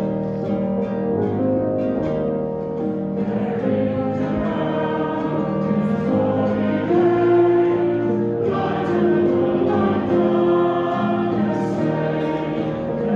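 A congregation singing a hymn in unison with instrumental accompaniment, the sung notes held and moving steadily.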